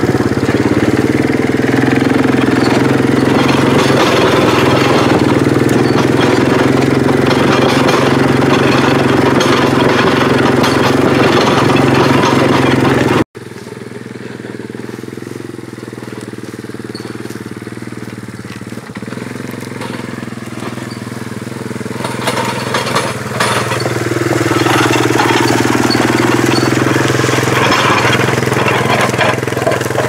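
ATV engine running close up while riding along a forest trail. About 13 seconds in the sound breaks off abruptly and the ATV is heard from farther away, growing louder as it drives closer, its engine pitch rising and falling.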